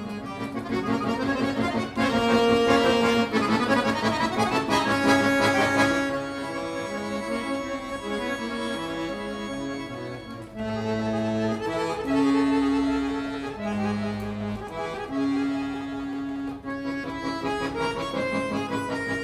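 Solo concert button accordion playing a classical sonata movement: a loud passage of fast, dense notes in the first few seconds, then quieter playing with long held low notes.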